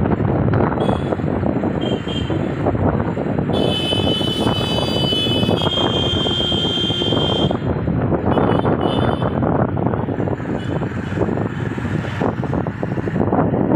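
Steady rush of wind and road noise from a moving vehicle, heard from its window. A high-pitched squealing tone cuts in about three and a half seconds in and lasts about four seconds, with a few shorter high squeaks before and after it.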